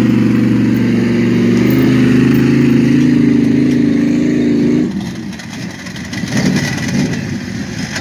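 Six-wheel-drive recovery truck's engine running hard at steady high revs under load, its tyres spinning in wet sand as it pulls a stuck vehicle on a tow strap. About five seconds in, the engine drops off sharply to a much lower, rougher running sound.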